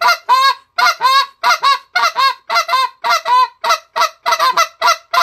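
Goose call blown in a fast, even run of short spit notes, mostly in quick pairs with a clipped start and a brief dip in pitch, imitating the spit note geese make.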